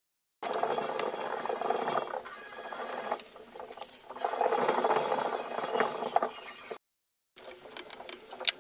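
Metal clinking and rattling as the timing chain of an old BMW motorcycle engine is handled and fitted over its sprockets. It breaks off abruptly, then comes back briefly with a ratchet wrench on the crankshaft nut and a sharp click near the end.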